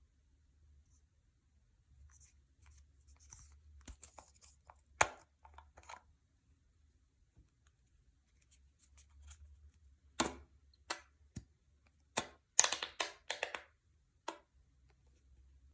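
Scattered clicks and taps from hands handling things at a table. There is a sharp loud tap about five seconds in and a quick run of clicks near the end.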